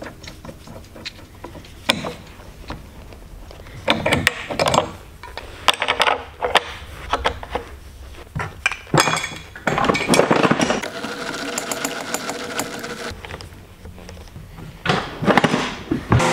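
Irregular metal clicks and clatters of wrenches and parts against a router table's steel insert plate as a bit is fitted and tightened in the router. The router motor switches on right at the end.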